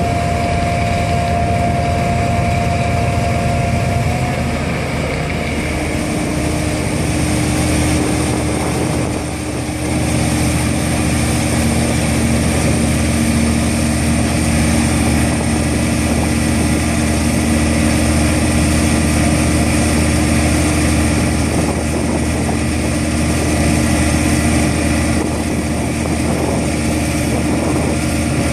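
Bruce SGV-400 vibratory pile hammer and its hydraulic power pack running steadily as the hammer vibrates a steel sheet pile into the ground: a loud, constant mechanical hum. The pitch of the hum shifts about five seconds in.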